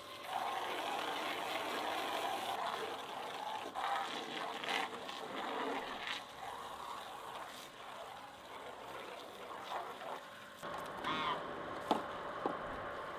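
Water from a garden hose spray wand running into a plastic basin, a steady splashing hiss that stops about ten seconds in. A goose then honks once near the end.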